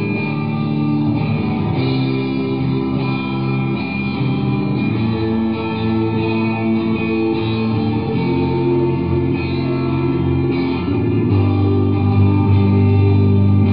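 Live rock band playing an instrumental passage, electric guitars to the fore over bass and drums.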